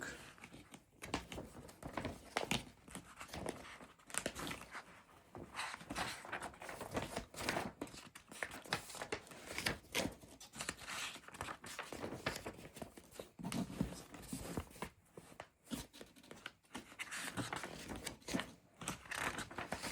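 Paper pages of an instruction booklet being turned and handled: irregular rustling and crinkling with many short crackles, continuing in uneven bursts.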